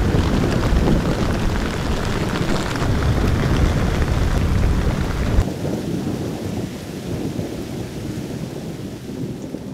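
Steady crackling hiss of falling water over a deep rumble; the rumble cuts off suddenly about halfway through.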